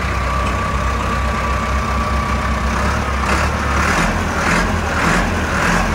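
Massey Ferguson 3060 tractor's four-cylinder diesel engine running steadily while the front loader raises its bucket. A thin steady whine is heard for the first half, and a hissing surge repeats about every 0.6 s in the second half.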